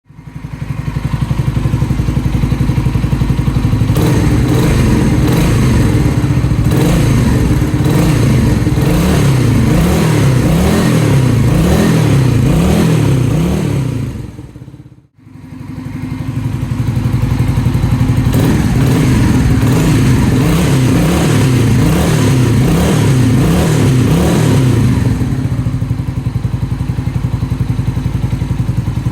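Engine exhaust through a cheap aftermarket muffler that has been taken apart and modified for a better tone. It idles, is revved repeatedly with throttle blips, dips out briefly about halfway through, comes back idling, is revved again, and settles back to idle near the end.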